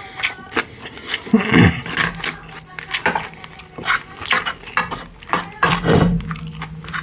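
A person eating pork-bone soup (gamjatang) close to the microphone: wet chewing with many quick clicks and smacks, and two longer, louder mouth sounds, about a second and a half in and near the end.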